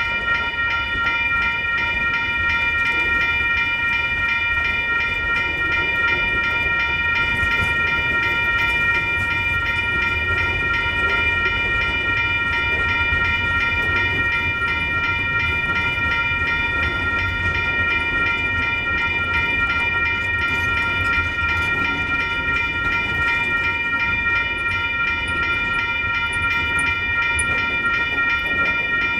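Railroad grade-crossing bell ringing steadily and rapidly while freight cars roll past with a low, steady rumble of wheels on rail.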